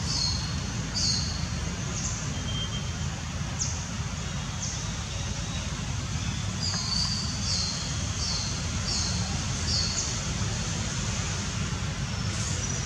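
Outdoor ambience: a steady low rumble with short, high, falling chirps scattered through it. The chirps quicken into a run of about six, roughly half a second apart, in the middle.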